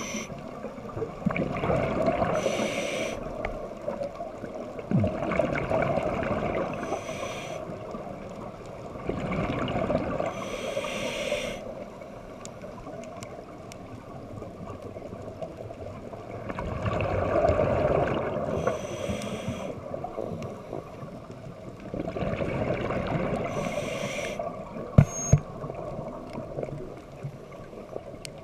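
Scuba regulator breathing underwater: slow cycles of inhaled hiss and exhaled bubbles rushing out, a breath roughly every five to seven seconds. Two sharp clicks near the end.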